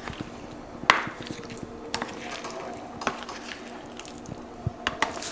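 A serving spoon knocking and scraping against a glass baking dish while stirring frozen strawberries in cream: a few sharp clacks, the loudest about a second in.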